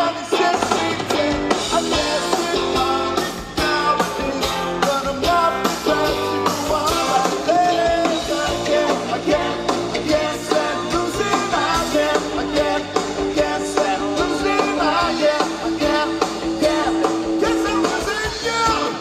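Live rock band playing a reggae-tinged rock song, with guitar and a singer's voice over the band; a long held note runs through the second half.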